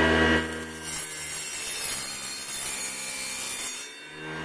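A homemade mini table saw cutting through a strip of printed-circuit-board laminate. The small DC motor's steady whine gives way about half a second in to a harsh, hissy rasping as the blade goes through the board. The whine comes back near the end, once the cut is through.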